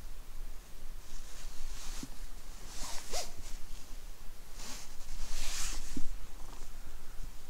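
Gloved hand rubbing a cat's fur as it is petted: several short scratchy rustles as the cotton glove strokes its head and the cat pushes against it.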